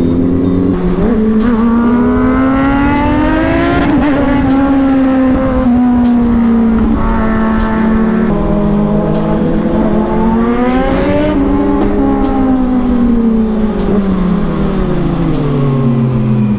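Inline-four sport-bike engines of a Kawasaki Z900 and ZX6R riding together, loud through their exhausts. Their pitch climbs and drops as they rev through the gears, with a sharp drop about four seconds in.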